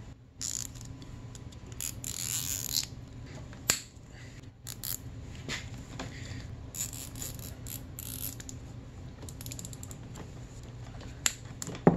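Nylon zip tie being pulled tight through its ratchet head: short runs of rapid zipping clicks, mixed with rustling of hoses being handled and a few sharp clicks near the end.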